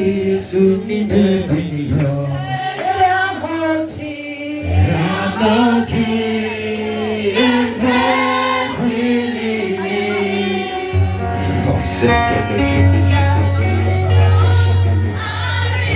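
Gospel song sung by a group of voices over band accompaniment with sustained bass notes.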